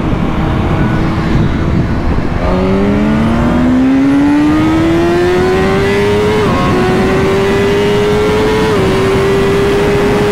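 Sportbike engine pulling hard at full throttle from a rolling start, its revs climbing steadily with two quick upshifts about four and six seconds after the pull begins, over steady wind rush.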